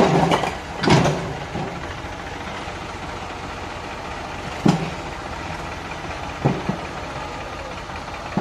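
Tractor engines running steadily at idle, with a few short sharp knocks: one about a second in, one near the middle and one past the middle.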